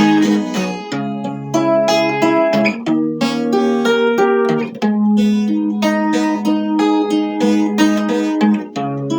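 Instrumental music from a romance song: a guitar-like plucked string melody picks out a run of separate notes over held low chords.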